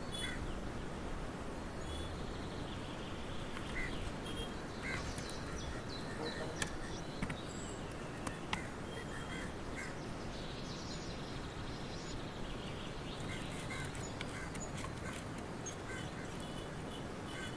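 Steady outdoor background noise with scattered bird chirps, and three sharp clicks in the middle.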